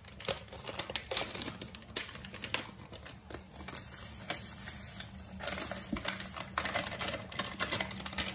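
Crinkling and rustling of a paper pudding-mix packet being handled and shaken out over a pot, a run of irregular crackles that grows busier a little after the middle.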